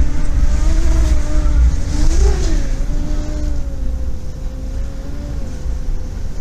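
A hurricane-force wind gust howls with a wavering whistle over a heavy low rumble. The whistle jumps up in pitch about two seconds in, then settles and dies away near the end.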